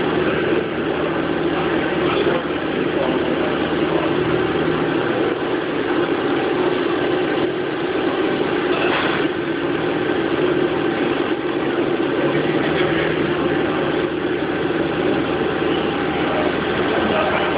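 Haas CNC machine running with a steady mechanical hum and whir; a lower part of the hum drops away about four seconds in.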